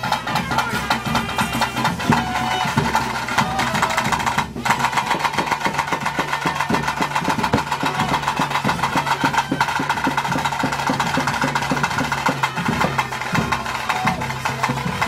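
Live Bhuta Kola ritual music: rapid, dense drumming under a steady high-pitched melodic instrument, with a brief break about four and a half seconds in.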